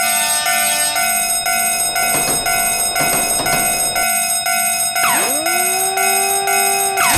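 Japanese railroad crossing warning bell clanging in a steady 'kan-kan' rhythm, about two strokes a second, over several held tones. About five seconds in, and again near the end, swooping tones dive and then settle into steady pitches.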